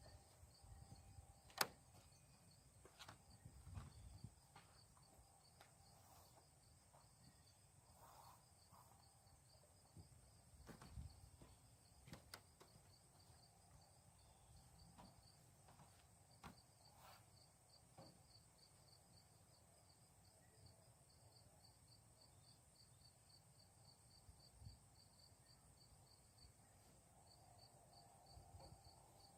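Faint crickets chirping steadily, with a fast even pulsing that does not let up. Scattered light clicks and taps come through over it, the sharpest about a second and a half in.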